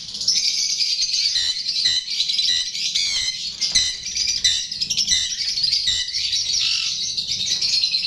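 Many small cage birds chirping and chattering together, a dense high twittering without a break.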